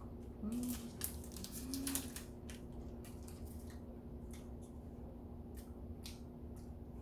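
Someone eating cheesecake: scattered small clicks of fork and mouth with soft chewing, and two short hummed "mm"s of enjoyment about half a second and two seconds in, over a steady low hum.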